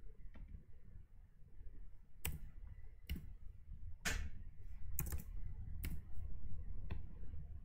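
Keystrokes on a computer keyboard: about seven separate, irregularly spaced clicks, one near the middle a little drawn out, over a faint steady low hum.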